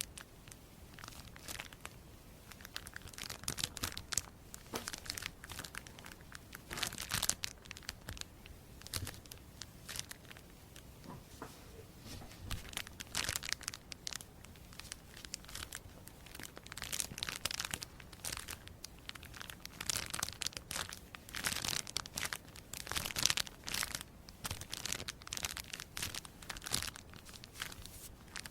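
Crisp crinkling and crackling of something being handled, made of many short, sharp, irregular crackles throughout.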